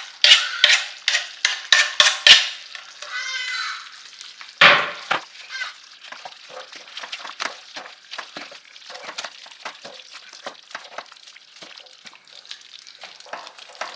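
A spoon knocking and scraping against a cooking pot as coriander is stirred into simmering chicken stew: a quick run of sharp knocks, then one more a couple of seconds later. Afterwards the thick coconut-milk sauce simmers with a steady patter of small pops and crackles.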